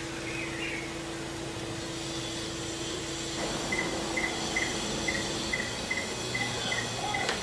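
A short high chirp repeats two or three times a second from about halfway through, over a steady low hum. A single sharp click near the end comes as an oscilloscope probe clip is attached.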